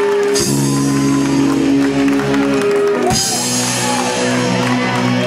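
Live rock band playing electric guitars over a drum kit, holding sustained chords, with bright crashes about half a second in and again about three seconds in.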